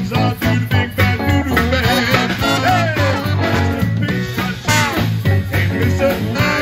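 Live big band playing an upbeat swing tune, with a horn section of saxophones and trumpet over a drum kit's steady beat and keyboard.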